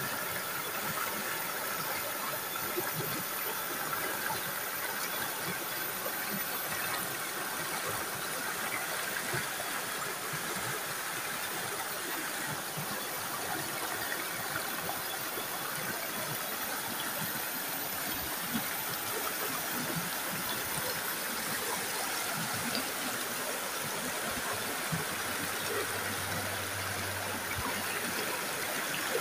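Shallow rocky stream rushing over boulders and small cascades: a steady, even rush of splashing water.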